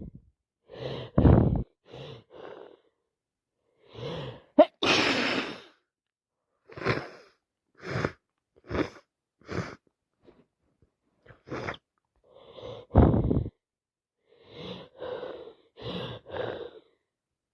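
A woman sneezing again and again with a head cold and hay fever, with short sniffs and breaths between the sneezes. The loudest sneezes come about 5 seconds in and about 13 seconds in.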